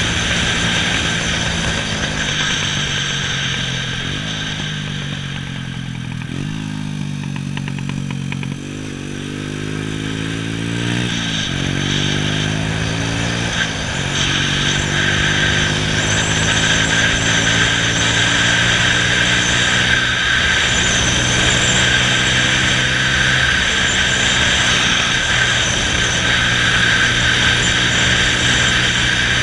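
Honda Astrea's small single-cylinder four-stroke engine running as the motorcycle rides along, its note climbing and dropping back twice near the middle. Wind noise on the microphone grows stronger over the second half.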